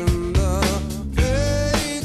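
Background music: a rock song with guitar and a steady beat.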